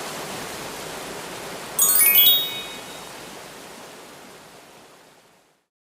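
A bright run of chime tones falling quickly in pitch, a sparkle sound effect, about two seconds in, over a steady background hiss that fades out near the end.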